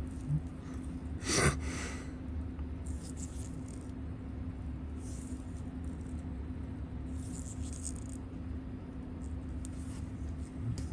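Small metal tools and parts clicking and rattling on a watchmaker's bench, with one sharp clatter about a second and a half in and lighter scratchy handling noises after it, over a steady low hum.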